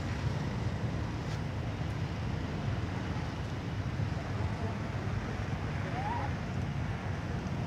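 Wind rumbling steadily on the microphone, with one faint short rising call about six seconds in.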